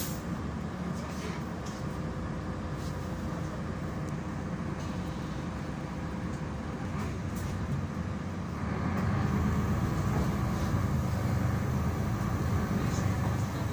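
Interior noise of a Solaris Urbino 12 III city bus on the move, heard from the passenger cabin: a steady engine and road rumble that gets louder about eight and a half seconds in.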